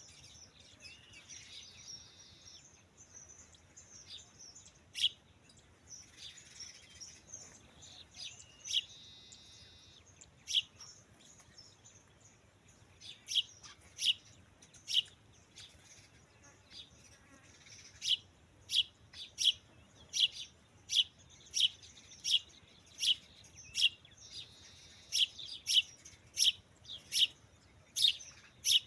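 A bird giving short, sharp, high chirps over and over, scattered at first and then coming steadily about one or two a second from about halfway through, with softer twittering between them.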